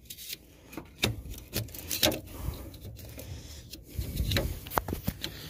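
White plastic wiring connector of a 2000 Ford Mustang's ABS module being handled after it was unplugged: scattered sharp plastic clicks and knocks with rubbing between them.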